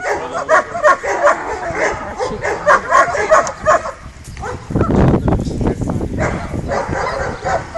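A dog yipping and whining in quick, broken calls while it grips and tugs a jute bite sleeve, with a burst of rough noise about five seconds in.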